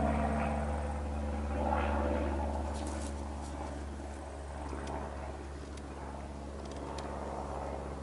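Steady low engine drone that fades over the first few seconds, with a few faint ticks from a knife paring green wood.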